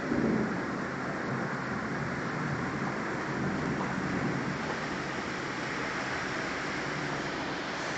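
Heavy thunderstorm rain and strong wind, a steady rushing noise, with a brief low swell right at the start.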